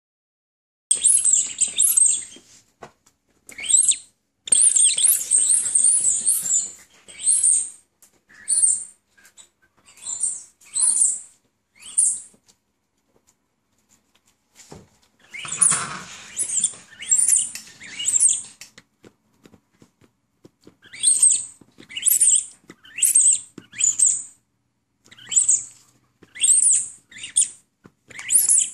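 Rubber squeaky toy squeaking over and over as a small dog chews it: short, high-pitched squeaks about once a second, with a pause of a couple of seconds about halfway through.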